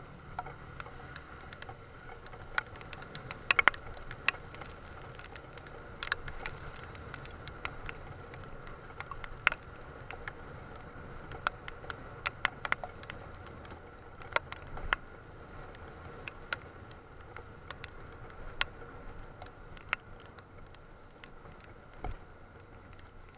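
Raindrops tapping on a closed motorcycle helmet visor: irregular sharp ticks scattered throughout, over a steady low rumble.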